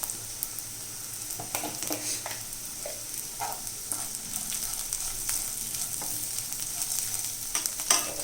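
Boiled cluster-bean pieces frying in a pan with a steady high sizzle, while a spatula stirs and scrapes them in irregular strokes, the loudest scrape near the end.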